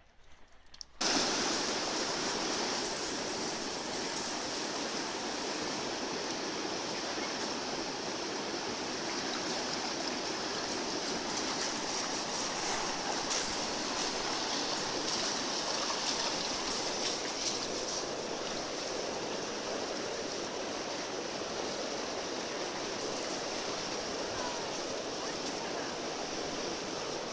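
Steady rush of a fast-flowing river, starting suddenly about a second in.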